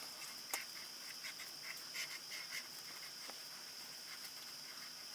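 Felt-tip pen stroking on paper in a run of short, faint scratches while lines are drawn, over a steady high-pitched whine.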